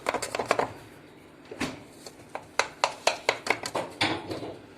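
Knife cutting through a baked chocolate cake in its baking tray, the blade tapping against the tray in runs of sharp clicks, with a quieter stretch about a second in.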